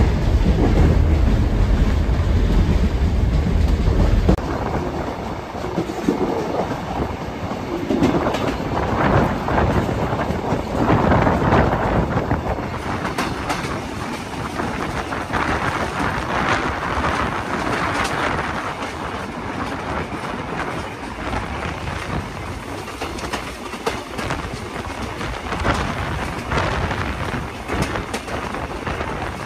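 Passenger coaches of a steam-hauled train rolling along, the wheels clattering over the rails with a steady rush of wind and running noise, heard from an open coach verandah. A heavy low rumble for the first four seconds or so drops away abruptly.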